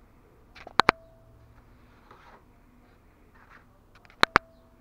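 Two sharp double clicks about three and a half seconds apart, each followed by a brief ringing tone. Faint rustling of wood veneer sheets being handled on a worktop runs in between.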